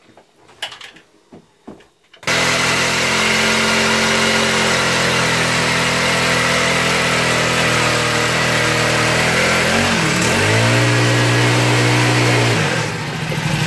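Power ice auger drilling down through the ice, its motor running steadily under load. It starts abruptly about two seconds in, its pitch dips and recovers around ten seconds in, and it drops to a lower level near the end.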